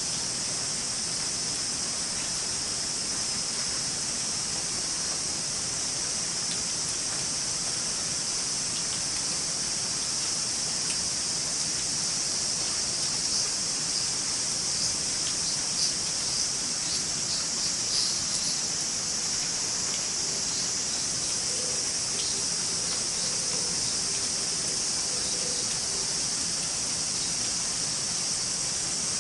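Light summer rain falling steadily: an even hiss with scattered small drop ticks, a few more of them around the middle, under a constant high-pitched hiss.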